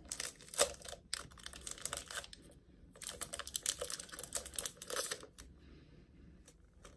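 Plastic packaging crinkling and rustling with rapid small clicks as a small packaged eraser is opened and handled, in two spells, fading near the end.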